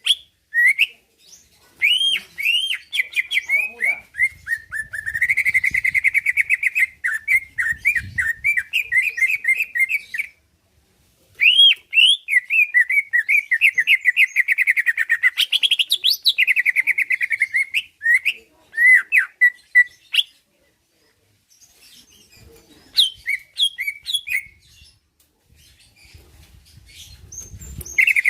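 Cucak ijo (green leafbird) singing a fast, unbroken run of chirps, whistles and trills in long phrases. There is a short pause a little past a third of the way in, and a quieter, sparser spell about two-thirds in. This is the bird in full 'gacor' song.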